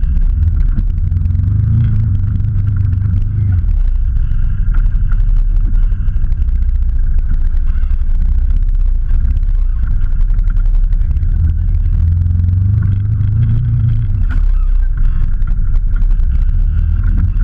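Off-road 4x4's engine running hard with a deep rumble, revving up twice, about a second in and again about ten seconds in, as the vehicle works at a steep dirt bank.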